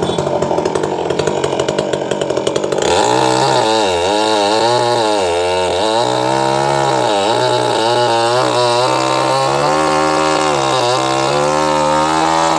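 Chainsaw running while cutting a coconut tree. A rough rattling gives way about three seconds in to a clearer engine whine whose pitch repeatedly dips and recovers.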